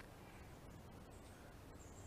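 Near silence: faint background hiss, with a faint high thin tone briefly about a second in and again near the end.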